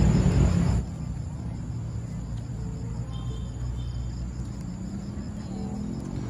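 Background music that cuts off suddenly under a second in, leaving evening garden ambience: insects chirping steadily over a low steady rumble, with two short high chirps in the middle.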